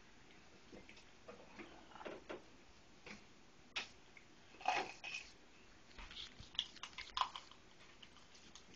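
Kitchen knife cutting into a raw whole chicken on a wooden cutting board: faint, scattered short sounds of blade and wet meat, a little louder about five seconds in and around seven seconds.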